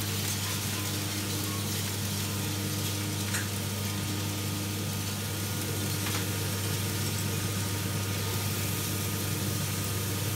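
Coffee roaster's cooling tray running: rotating agitator arms sweep freshly roasted beans over the perforated floor, a steady rustling hiss of beans over a low, even motor and fan hum.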